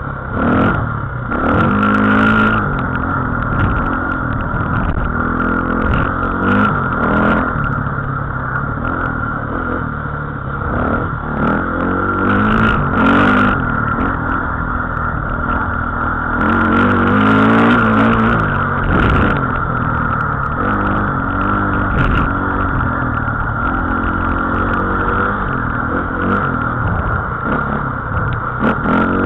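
A small motor-vehicle engine running and revving up and down several times over a steady high whine, with scattered knocks and rattles as the vehicle moves along a rutted dirt track.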